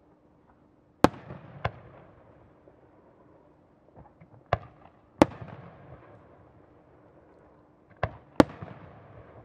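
Aerial firework shells bursting: six sharp bangs in three close pairs, about one, four and a half, and eight seconds in. Each bang is followed by a fading, echoing rumble.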